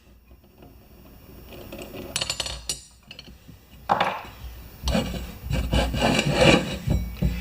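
Rubbing and scraping of parts being handled, likely the wheel rim and valve tool being moved around: a few clicks a little after two seconds in, then louder repeated rubbing and scraping from about four seconds in.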